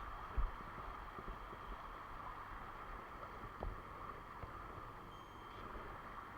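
Steady rush of a mountain stream's flowing water, with a couple of low knocks from handling, a sharp one about half a second in and another a few seconds later.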